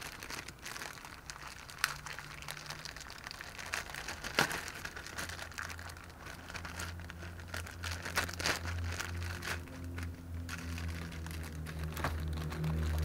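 Plastic wrapping around a new pleated cabin air filter crinkling and crackling as it is opened and pulled off by hand, in irregular bursts. A low steady hum comes in underneath about halfway through.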